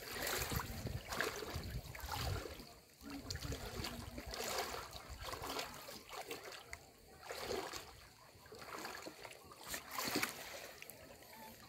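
Sea water splashing and lapping in irregular washes that rise and fall.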